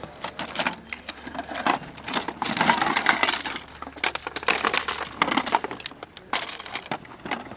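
Folding kayak frame parts clattering and clicking as they are handled and fitted together: a busy run of rattles and knocks, densest a couple of seconds in and again midway.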